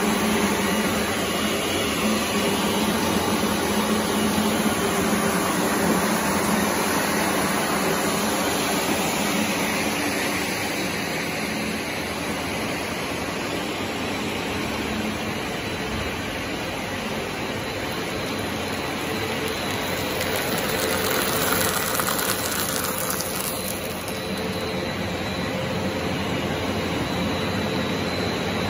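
Bread crumb production line machinery running: steady mechanical noise with a low hum, from the twin-screw extruder, conveyors and crumb-handling machines working together.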